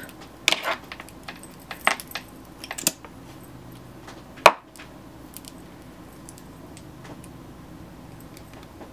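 Small hard clicks and clacks of makeup items being handled, a handful in the first three seconds and one sharper click about four and a half seconds in, then only faint room tone.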